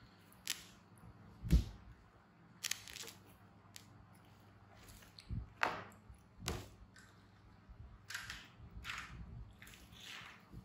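Scattered knocks and clicks of plastic toy construction trucks and their cardboard box being handled on a tiled floor, with one louder thump about a second and a half in, and rustling near the end.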